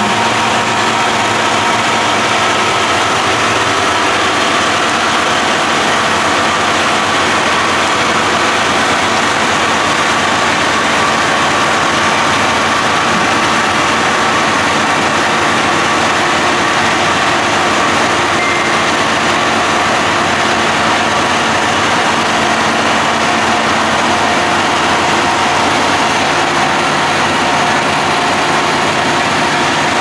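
Case IH Quadtrac tractor's diesel engine running steadily, close by, with a constant whine through it.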